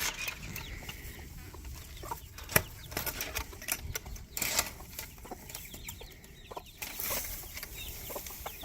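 Young chickens, about a month old, peeping and clucking in short chirps, with a few sharp knocks and rustles among them.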